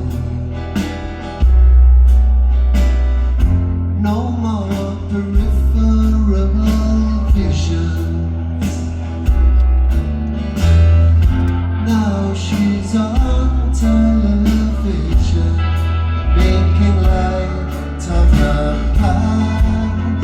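A live band playing a song: a bass line and drums with cymbal hits under guitar, with some singing.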